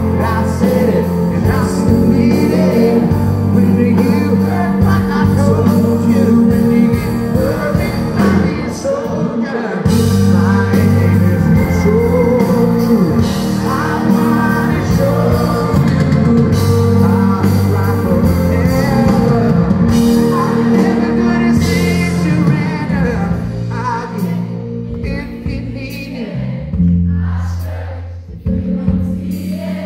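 Live pop-rock band music with a man singing over keyboard chords and bass; the accompaniment thins out near the end.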